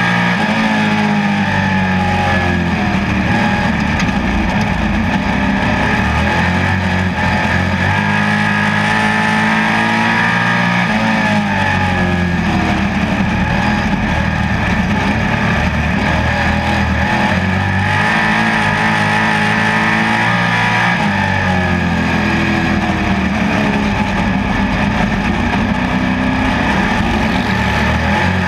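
Dirt-track pro stock race car's engine at racing speed, heard on board. Its revs drop and climb again several times as the car laps the oval, over a steady rush of noise.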